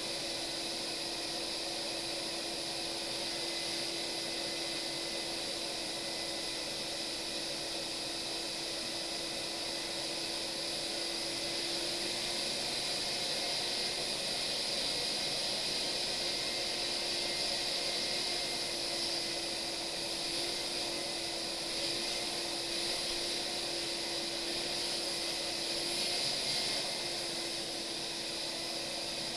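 Shop vacuum running steadily with a constant hum, its hose sucking up sawdust from a freshly routed slot in a wooden panel.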